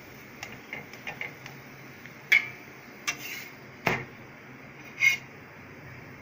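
Metal spatula clinking and scraping against a tawa as it presses a paratha: a scattering of light ticks, then three louder sharp clinks about two and a half, four and five seconds in.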